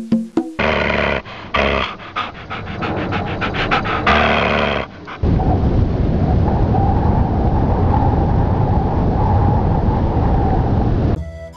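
Dog-like animal sound effects: first a run of quick, jagged sounds, then about six seconds of steady, rough noise that cuts off shortly before the end. A wood-block music beat ends just as the animal sounds begin.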